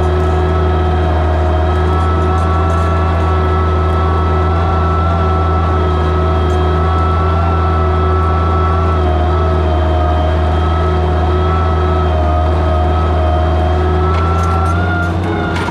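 Oliver 77 tractor's six-cylinder engine running steadily under load as it pulls a plow through the soil. Near the end the engine note shifts and dips slightly in level.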